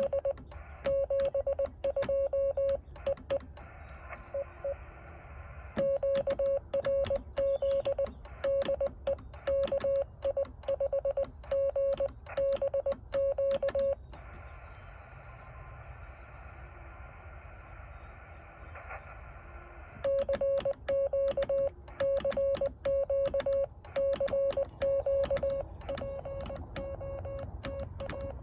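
Morse code tone from a Yaesu 817 transceiver, a single pitch keyed on and off in dits and dahs, with faint clicks along with the keying. The tone stops for about six seconds of receiver hiss in the middle, then the keying resumes.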